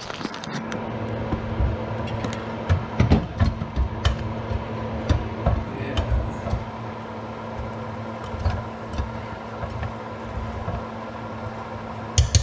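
Scattered knocks and clicks from handling a rice cooker over a steady low hum, with one sharp clack near the end.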